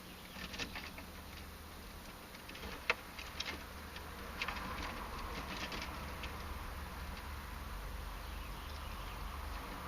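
Small clicks and rattles of wiring and hardware being handled while a ground wire is hooked up, the sharpest click about three seconds in, over a low steady hum.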